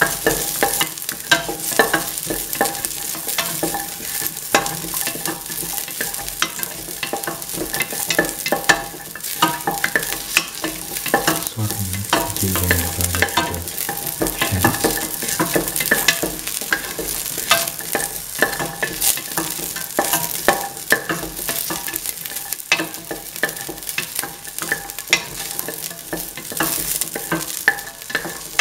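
Shallots, ginger and garlic sautéing in a little oil in a stainless steel pan: a light sizzle with frequent clicks and scrapes of a utensil stirring against the metal.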